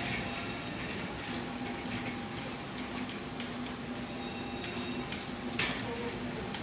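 Metal wire shopping cart being pushed across a smooth store floor, its wheels rolling with a steady crackly noise over a faint steady hum. One sharp clack stands out about five and a half seconds in.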